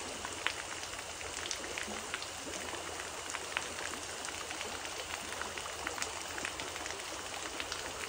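Creek water flowing: a steady wash with many small ticks and drips.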